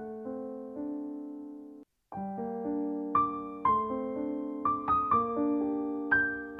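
Background piano music: held notes and chords, a brief break about two seconds in, then notes struck more often.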